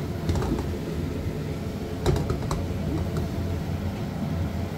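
Water boiling in a pan around a block of instant noodles, with a few small ticks and pops about two seconds in, over a steady low hum.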